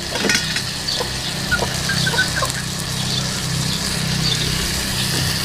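Food frying in a pan, a steady sizzle over a low hum, with a few short faint chirps about two seconds in.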